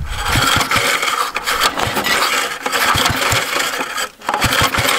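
1982 Briggs & Stratton 3 hp engine being cranked with its pull-start rope without catching, with a brief pause about four seconds in. The owner takes the failure to fire for probably no spark.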